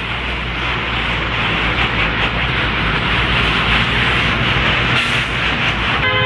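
A loud, steady rushing noise with a low hum underneath, and a short pitched sound near the end.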